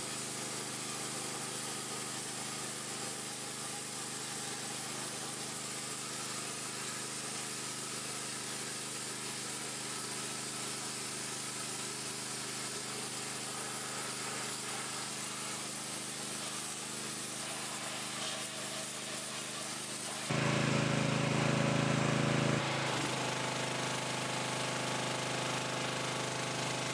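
Evolution EVO system's 6.5 hp petrol engine running steadily, driving the pressure washer while its lance sprays a water jet onto paving slabs with a steady hiss. About twenty seconds in the sound steps up louder and deeper for a couple of seconds, then settles.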